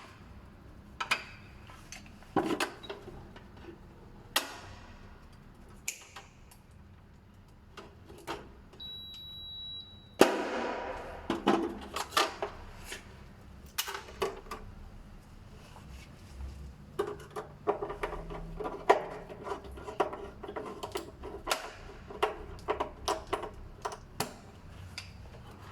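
Scattered clicks and small knocks of wires and a screwdriver being worked at a panel's terminal block as mains wires are fastened in. About nine seconds in there is a brief high-pitched steady beep.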